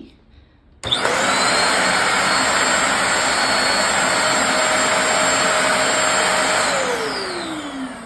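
Philco PH1100 Rapid Turbo 1000 W stick vacuum cleaner switched on about a second in, running steadily with a high whine over a loud rush of air. Near the end it is switched off and the motor winds down, its whine falling in pitch as it fades.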